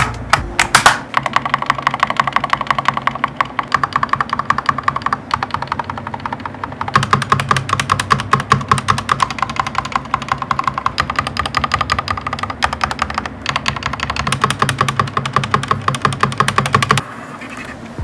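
Typing on an Akko Tokidoki 5108S full-size mechanical keyboard with stock stabilizers: a rapid, steady run of keystroke clacks, briefly softer about five seconds in, that stops about a second before the end. It is preceded by a few sharper clicks in the first second as the keyboard's plastic feet are snapped.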